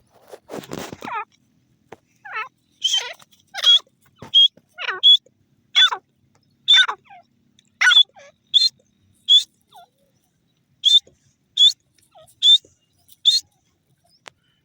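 Francolin (teetar) calling: a long series of loud, sharp, repeated notes, a little under a second apart, with a brief pause about ten seconds in before a few more. A short rustle comes just before the calls begin.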